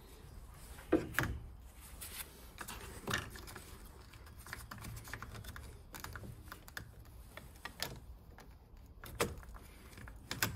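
Scattered small metallic clicks and scrapes of a screwdriver levering under a stuck positive battery-terminal clamp to work it off the post.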